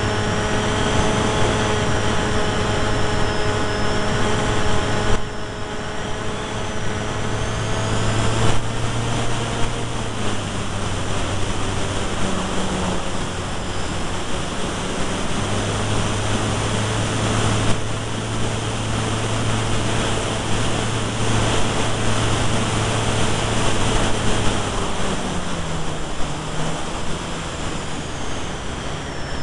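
Electric motor and propeller of a small depron FPV delta wing running in flight: a steady whine that drifts slightly in pitch with throttle over constant airflow rush. The whine weakens about ten seconds in and again near the end.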